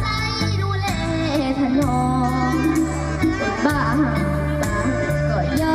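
A young girl singing into a microphone over amplified backing music with bass notes and a drum beat.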